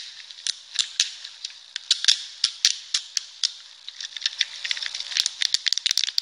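Buttons on a small handheld toy being clicked by hand: sharp, irregular clicks, coming in a quick run from about five seconds in.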